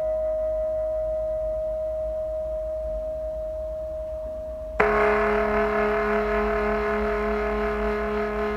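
Sustained ringing tones: a higher tone slowly fading, then about halfway a sudden louder, lower tone with many overtones that keeps ringing.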